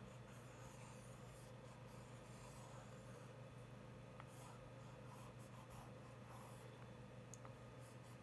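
Faint scratching of a stylus drawing on the plastic screen of a Boogie Board LCD writing tablet, in short strokes, over a steady low hum.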